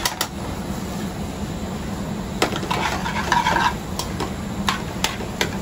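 Metal tongs clinking and scraping against an aluminium frying pan as noodles are tossed, with about eight sharp clicks spread through. A steady low hum runs underneath.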